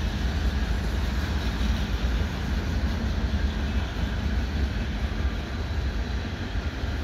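Freight train cars rolling past on the rails, a steady low rumble of steel wheels on track with no let-up.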